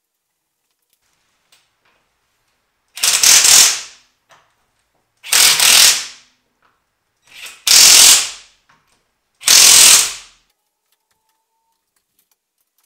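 Cordless impact wrench hammering the wheel bolts tight on a car's rear wheel: four short bursts, one per bolt, about two seconds apart.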